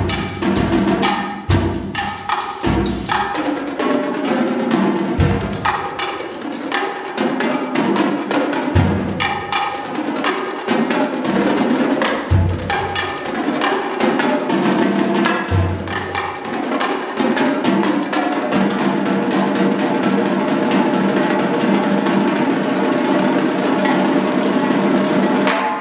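Marching tenor drums (quads) played as a fast duet by two drummers, with cymbal crashes. Loud accented strikes come first, then dense rapid drumming that builds into a sustained roll about two-thirds of the way through and stops abruptly at the end.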